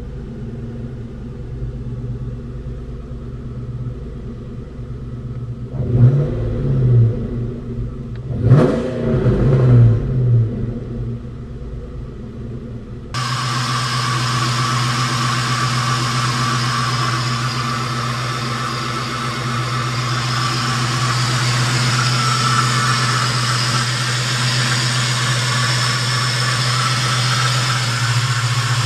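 1996 Ford Mustang SVT Cobra's 4.6-litre DOHC V8 through a 3-inch Mac cat-back exhaust with a custom X-pipe, heard from inside the cabin idling and then revved twice, about six and about nine seconds in, the pitch rising and falling each time. About halfway through, the sound changes to the engine idling steadily under the open hood, louder and brighter.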